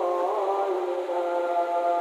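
Multi-tone 'telolet' air horn of an Indonesian intercity bus playing a tune: several notes sounding together, with a short pitch slide near the start, then held notes that change pitch.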